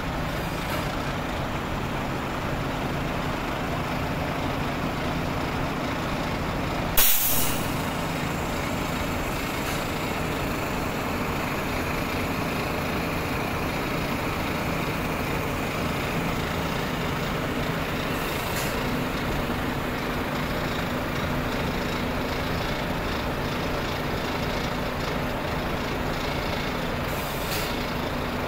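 Heavy-haul truck diesel engines running steadily under load, with one sharp, loud air-brake hiss about 7 seconds in and a few fainter hisses later.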